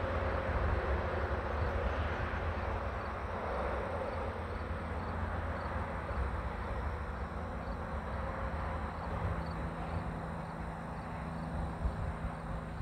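Open-field ambience: a steady low rumble with faint insect chirping, high and regular at about two chirps a second.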